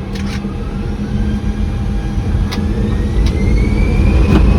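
Airbus A321 jet engines spooling up at the start of the takeoff roll, heard from inside the cockpit: a steadily rising whine over a heavy low rumble, growing louder. A few sharp clicks sound through it.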